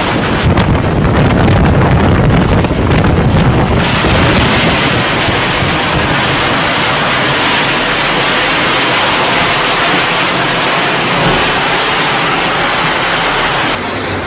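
Strong storm wind rushing loudly across the microphone, buffeting in heavy gusts for the first few seconds, then settling into a steady hiss.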